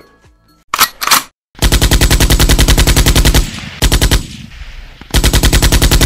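Machine-gun sound effect: two long bursts of rapid fire at about a dozen shots a second, with a short burst between them.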